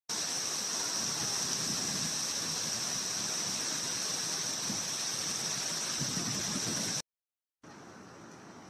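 A steady rushing hiss with a bright high edge, cutting off abruptly about seven seconds in.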